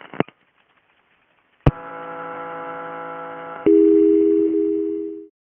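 Telephone line tones on a 911 call: a click, then about two seconds of a steady buzz of several tones, then another click and a louder steady dial tone that fades out after about a second and a half.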